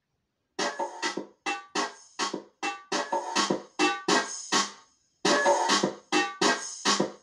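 A 25 W portable tube speaker playing music: short, chopped keyboard chords, about three a second, starting about half a second in, with a brief break near the middle. There is little deep bass.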